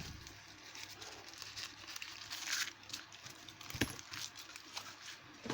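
Faint handling sounds of a small lock and its wrapping: scattered small clicks and knocks, with a short rustle of packaging about two and a half seconds in and a sharper click near four seconds.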